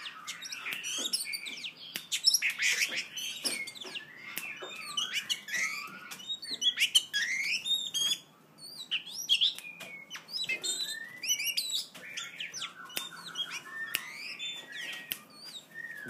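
Oriental magpie-robin singing a fast, varied run of whistled notes, pitch glides and sharp clicking chips, with a short rattling passage about three-quarters of the way through.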